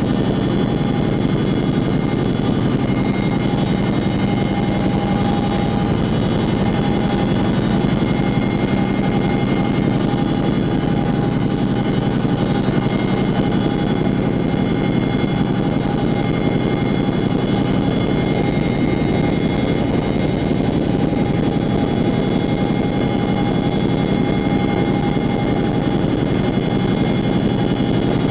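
Cabin noise inside a CH-47J Chinook tandem-rotor helicopter in level flight: the steady drone of its twin turboshaft engines and rotors, with several steady whining tones riding above it.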